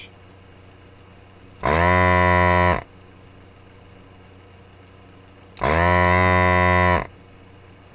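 Two long, low droning tones at a steady pitch, each just over a second long, starting and stopping abruptly.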